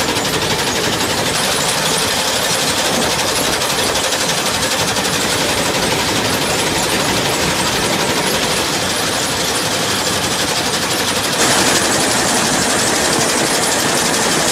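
John Deere combine running with its MacDon draper header engaged and the auger drum spinning: a steady, rapid mechanical clatter over the running machine. It gets a little louder and brighter about eleven seconds in.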